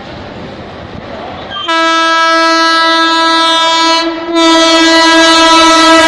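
A WAP7 electric locomotive's horn blowing long, one-toned blasts as the locomotive approaches at speed. Over a steady rushing noise, the horn starts about two seconds in, breaks off briefly around four seconds, then sounds again louder.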